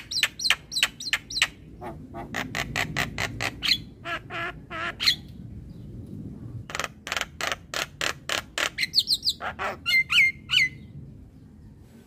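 Javan myna calling: rapid runs of short, harsh chattering notes, about four or five a second. There is a pause near the middle, and some clear gliding whistled notes near the end.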